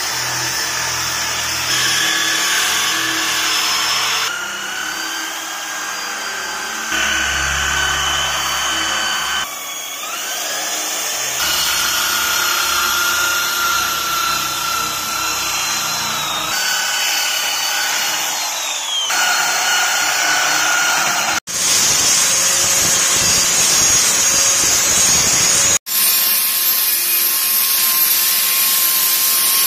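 Black+Decker corded drill spinning a sanding disc against the truck's steel body panels, in short clips that cut abruptly from one to the next, each with its own steady motor whine. In the last third an angle grinder runs against steel, grinding with a steady high whine.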